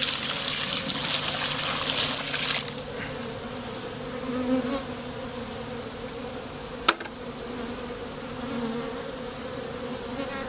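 Many honeybees from a freshly installed package buzzing steadily around the open hive, a continuous hum. A hissing rush of noise for the first two and a half seconds, and one sharp click about seven seconds in.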